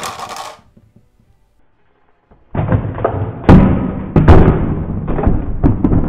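Clear plastic packaging crackling as it is handled, stopping about half a second in. After a short silence, a dramatic music cue comes in with heavy timpani strikes, the loudest two close together about a second after it starts.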